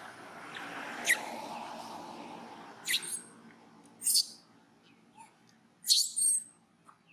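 Baby capuchin monkey giving short, high-pitched squeaks, about six of them, some in quick pairs, over a soft rushing noise in the first couple of seconds.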